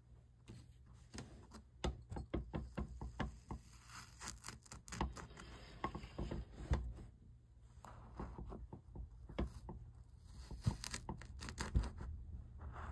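Green kinetic sand pressed down with fingertips inside metal cookie cutters, with small cutters pushed into the packed sand: a close run of soft crunching and crackling clicks.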